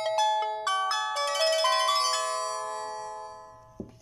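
Samsung phone power-on/off jingle: a quick run of bell-like notes that builds into a ringing chord and fades out over about two seconds, with a short click near the end.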